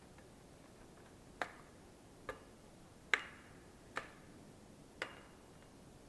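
Axe knocking on a tree trunk: five sharp knocks about a second apart, starting after about a second and a half, each with a short ringing tail. The knocking is meant to make a treed marten shift so the hunters can spot it.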